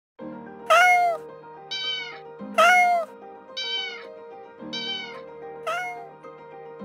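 A cat meowing six times, about a second apart, alternating a longer call that falls in pitch at the end with a shorter, higher one, over light background music.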